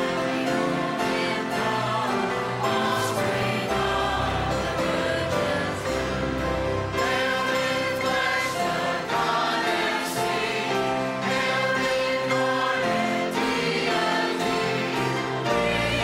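Church choir singing with piano accompaniment, with a few struck notes ringing out.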